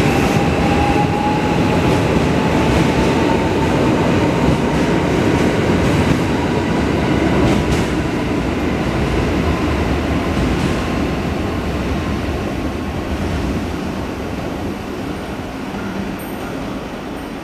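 JR West 521 series electric train pulling out of the station: its motor whine rises slowly in pitch as it accelerates, over the rumble of wheels on the rails. The sound fades gradually as the train draws away.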